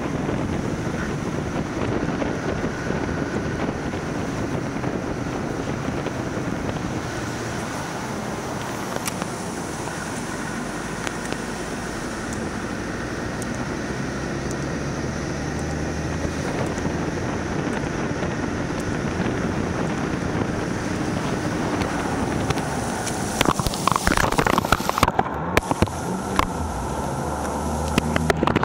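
Land Rover Defender driving on a wet road, engine and tyre noise with wind on the microphone. About 23 seconds in it drives into deep floodwater, and loud, irregular splashing and spray crash over the vehicle toward the end.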